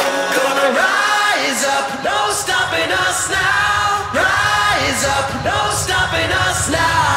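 Background music: a song with sung vocals over a steady beat.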